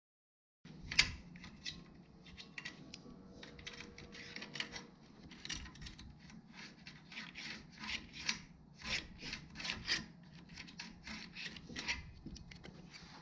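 3D-printed plastic mast gate piece and sail slugs scraping and sliding in an aluminium mast's sail track, handled by hand. There is a sharp click about a second in, then a run of irregular rubbing strokes, coming thicker in the second half, before the sound cuts off suddenly.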